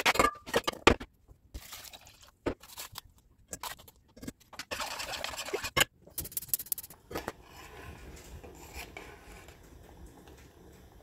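A knife scraping diced raw potatoes across a cutting board into a stainless steel pot, the pieces clattering in during the first second, followed by scattered scrapes and knocks. From about seven seconds there is a faint steady hiss of the pot of potatoes at the boil.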